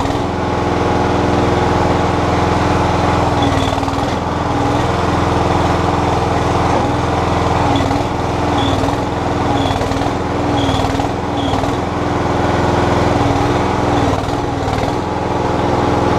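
Terramite compact backhoe's engine running steadily at high throttle, its pitch sagging briefly again and again as the hydraulics are worked under load.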